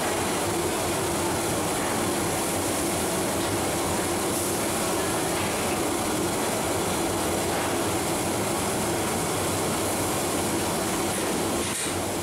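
Steady roar of a commercial gas burner firing under a large pot of simmering biryani water.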